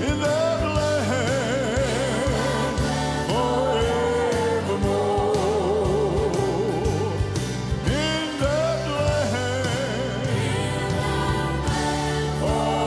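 Live gospel music: piano and band accompaniment under long, wavering sung notes from several voices.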